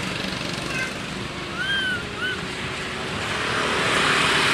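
A few short, high, arched squeaks from an infant long-tailed macaque: a brief one about a second in, then a longer rising-and-falling call and a short one near the middle. They sit over a steady background rush that grows louder near the end.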